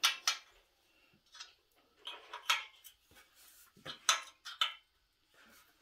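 Irregular metallic clinks and clanks of hand tools against the exhaust flange and header pipe of a Honda Z50 as the pipe is fitted and the flange nuts tightened.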